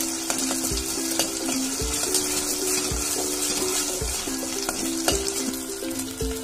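Onions and ginger-garlic paste sizzling in hot oil in a steel pressure cooker, stirred with a steel ladle that clicks now and then against the pot. Background music with a steady beat plays under it.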